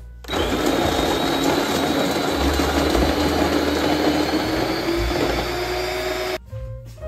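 Electric coffee grinder grinding beans, starting about a third of a second in and cutting off about six seconds in; its steady whine creeps slightly up in pitch as it runs.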